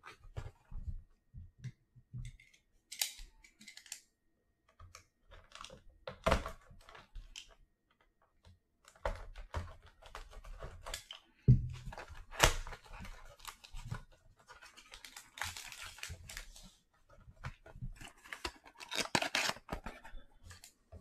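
A cardboard trading-card hobby box being slit open with a utility knife and handled, giving scattered scrapes, taps and tearing. Near the end comes denser rustling as the foil card pack is drawn out.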